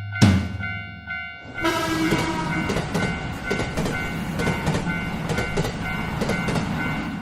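Railroad crossing bell tones ringing over a beat with heavy drum hits. About a second and a half in, a train sound effect takes over: a short horn that falls in pitch, then a steady rumble with rhythmic wheel clatter that covers the bell.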